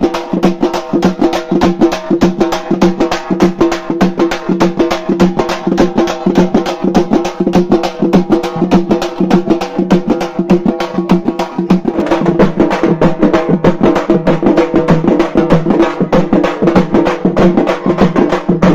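A group of large festival drums beaten with sticks in a fast, steady, continuous rhythm, growing fuller about two-thirds of the way through.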